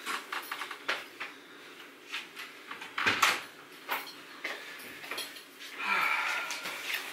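Hotel room door shutting with a single deep thump about three seconds in, among light clicks, footsteps and the rustle of someone carrying bags into the room.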